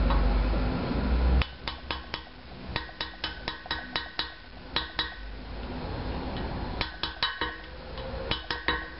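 Metal parts of a subwoofer being taken apart clinking and tapping: sharp clicks with a short metallic ring, coming in quick clusters from about a second and a half in. A low rumble before that.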